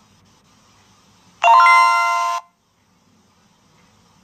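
A bright electronic chime, several bell-like tones sounding together for about a second and then cutting off sharply.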